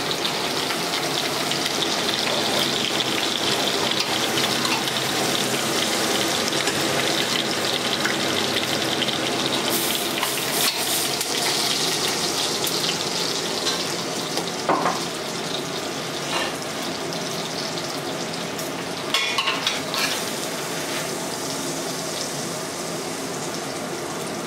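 Beef shanks sizzling as they fry in butter and oil in a stainless steel stockpot, with a few sharp clicks of metal tongs against the pot as the pieces are lifted out. The sizzle eases off a little about halfway through.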